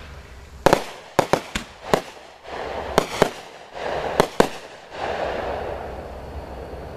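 Consumer fireworks going off: a rapid string of sharp bangs over about four seconds, then a fizzing, crackling hiss that slowly dies away.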